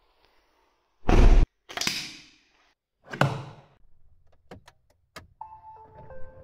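A door slamming: three heavy thuds about a second apart, the first the loudest. A few light clicks follow, and near the end a short run of steady tones stepping down in pitch.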